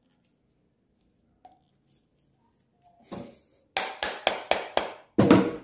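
Rubber mallet tapping a glued PVC pipe fitting to seat the joint: five quick, sharp taps, about four a second, then one harder, longer knock near the end, after a brief rustle of handling.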